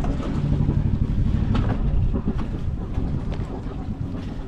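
Low, steady rumble of a sailboat's engine idling as it berths, with wind buffeting the microphone and a light knock about one and a half seconds in.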